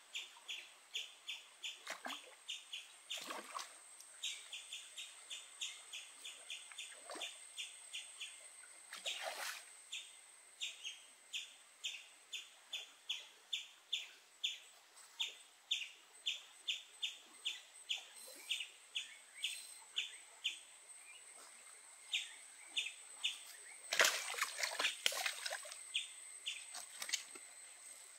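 A short high chirp repeated steadily about two to three times a second, over a faint steady high-pitched hum. A few sudden splashy sounds break in, the loudest cluster about 24 seconds in.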